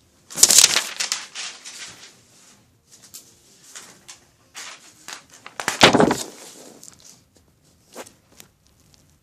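Rustling, crackling handling noises: a loud burst about half a second in and another about six seconds in, with softer scrapes and taps between and a small knock near the end.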